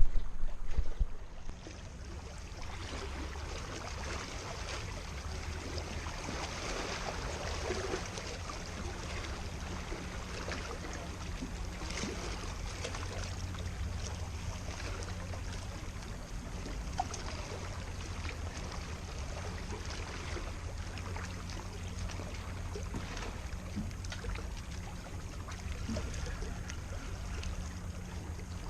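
Steady outdoor water and wind noise with a low steady hum underneath, after a few loud knocks in the first second.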